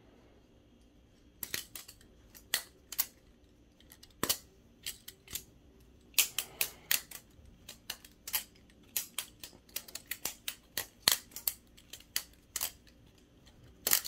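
Balisong trainer being flipped: sharp, irregular clicks of the G10 handles and blade knocking together as they swing, starting about a second and a half in and coming several a second in places.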